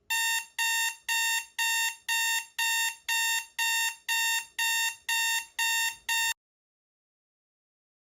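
Electronic alert tone: about thirteen identical short, high beeps in quick succession, roughly two a second, that stop abruptly about six seconds in.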